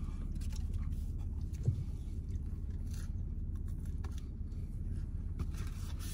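Steady low rumble inside a car, with a few faint small clicks and a light knock about one and a half seconds in.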